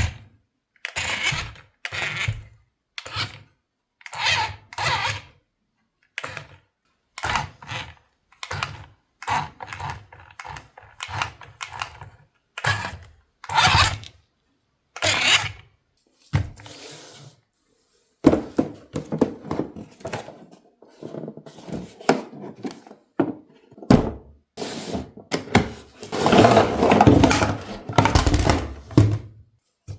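A string of short knocks, scrapes and rustles, each about half a second to a second long with short gaps between: toy packaging and parts being handled during an unboxing. The densest, loudest handling comes near the end.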